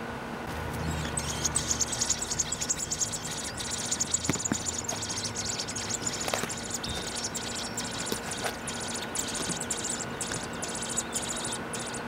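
Nestling American robins begging: a dense, rapid run of high, thin cheeps that starts about a second in and goes on with short breaks. The calls are the young asking to be fed by a parent robin at the nest.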